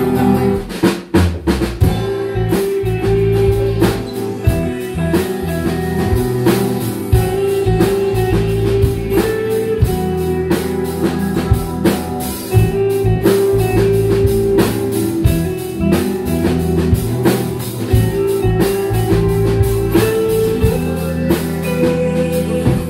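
Live band playing an instrumental passage: a drum kit keeping a steady beat under strummed acoustic guitar and held notes.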